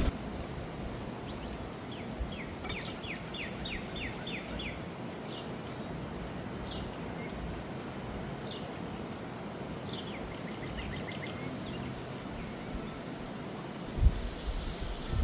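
A songbird chirping: a quick run of short, clear notes, then single chirps, then another quick run of lower notes, over steady wind noise. A low thump near the end.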